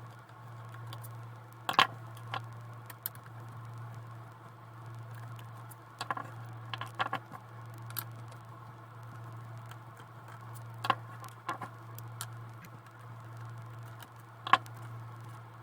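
Light clicks and taps of a small screwdriver and loose screws against a laptop's metal hinges and plastic case as the hinge screws are taken out. The clicks come singly and in a short cluster, over a steady low hum.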